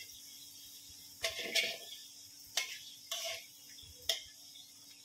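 Kitchen utensils and dishes being handled: about five short, irregular clinks and knocks over a faint steady hum.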